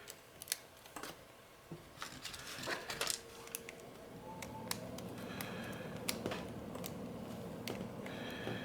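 Small plastic camera parts clicking and tapping as they are pressed and snapped back into place by hand, in scattered sharp clicks with a quick cluster about three seconds in. A faint steady hum rises underneath from about halfway.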